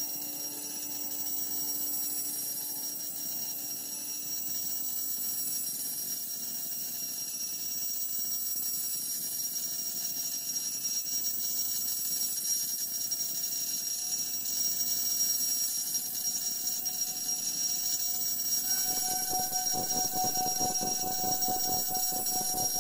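Electroacoustic music: layered sustained electronic tones under a steady high whistle. Near the end, a new steady ringing tone enters over a dense fluttering texture, and the sound grows a little louder.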